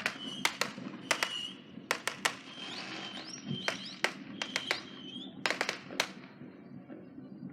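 Fireworks going off: more than a dozen sharp cracks and pops, several in quick pairs, with high whistling tones between them, some rising in pitch.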